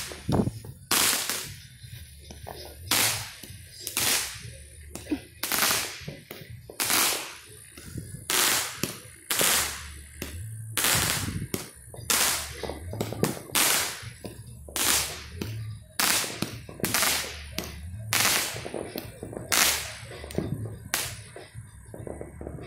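Fireworks going off in a rapid series of loud bangs, roughly one a second, each followed by a short echo; the last few are fainter.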